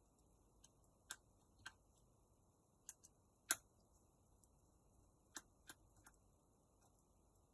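Sparse, sharp little clicks and taps, about nine in all at irregular spacing, from small tools and plastic and metal parts being handled while a smartphone is taken apart. The loudest single tick comes about three and a half seconds in.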